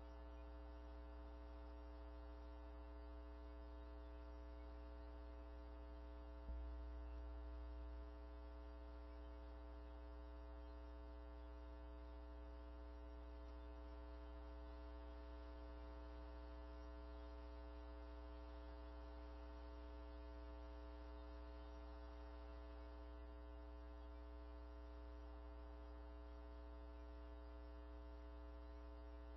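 Near silence apart from a steady electrical hum in the audio feed, with one faint click about six and a half seconds in.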